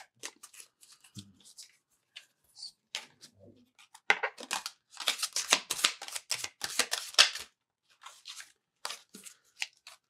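Tarot deck being shuffled by hand: scattered soft card clicks at first, then a dense run of riffling and slapping cards about four seconds in, thinning out again near the end.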